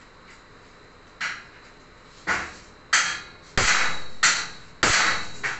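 Steel frame bars being knocked against each other: about six sharp metal knocks, each trailing off, the later ones running longer.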